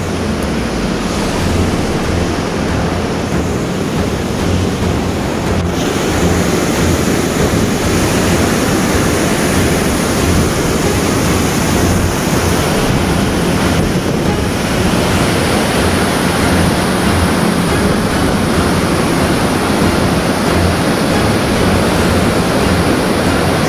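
Floodwater of a swollen river rushing and churning past bridge piers, a loud steady roar, with wind buffeting the microphone.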